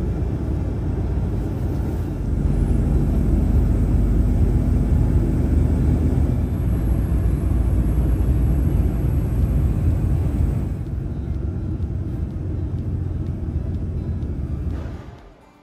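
DAF XG truck on the move: a steady, loud, low rumble of engine and road noise that fades out just before the end.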